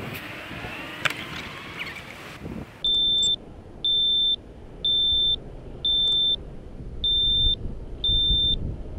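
A steady hiss with a few sharp clicks, then from about three seconds in the quadcopter's lost-model beeper sounds a single high tone in half-second beeps, about one a second. It is the alarm that marks where a crashed quad lies, here still beeping while it hangs in the tree.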